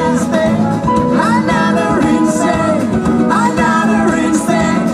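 Live band playing an upbeat jazzy pop song, electric guitars, bass, drums and keyboard under a woman singing lead.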